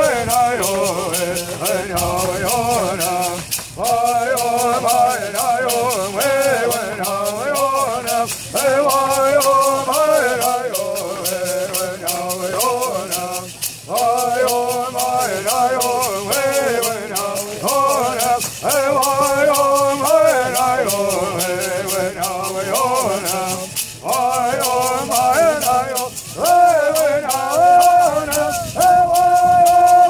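Bird singers singing a Bird Song in unison, keeping a steady fast beat on gourd rattles, with brief breaks between sung phrases.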